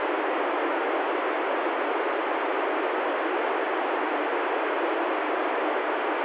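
Steady FM receiver hiss from an ICOM ID-51 handheld tuned to the ISS downlink on 145.800 MHz, with no signal coming in from the station between answers.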